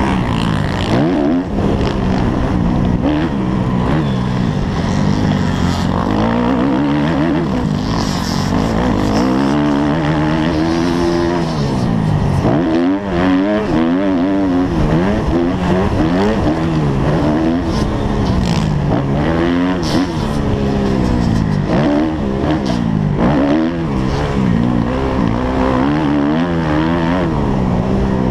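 A Kawasaki motocross bike's engine, heard onboard while it is ridden hard around a dirt track: the note climbs and drops again and again every second or two as the rider opens and closes the throttle and shifts through the gears, over a constant rush of wind and riding noise.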